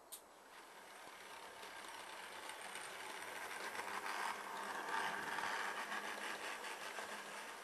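Model train running along the track and passing close by: small electric motor whine with fine rapid rattling of wheels on rail, growing louder to a peak about five seconds in and then fading. A short click right at the start.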